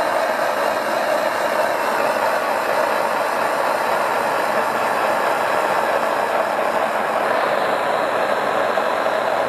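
Handheld propane torch burning steadily: a constant, even hiss of the flame with no breaks.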